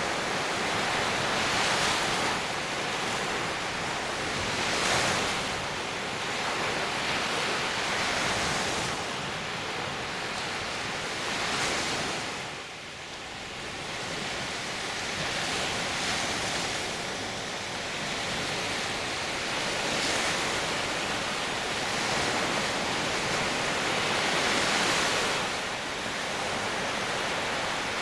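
Small Baltic Sea waves breaking and washing up a sandy beach: a steady rush of surf that swells and eases every few seconds.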